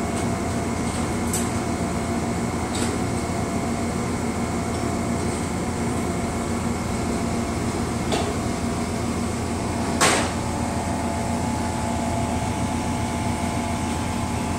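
Steady hum of a standing Amtrak passenger train's air-conditioning and onboard equipment, with one sharp clank about ten seconds in.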